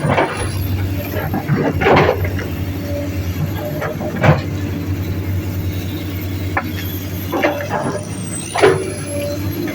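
Diesel engine of heavy earthmoving machinery running steadily under work, with a few short, sharp noises about two, four and eight and a half seconds in, the last the loudest.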